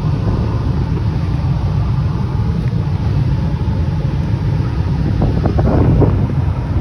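Steady, loud low rumble of rushing air.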